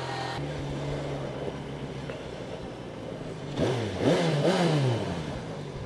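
Yamaha FZ6R's 600cc inline-four engine running steadily at low revs, then about three and a half seconds in accelerating, its pitch rising and dropping twice as it shifts up, with wind rush behind it.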